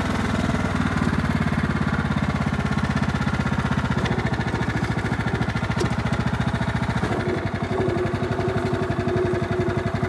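Craftsman lawn tractor's engine running steadily with evenly spaced firing pulses. A steady whine joins in about seven seconds in.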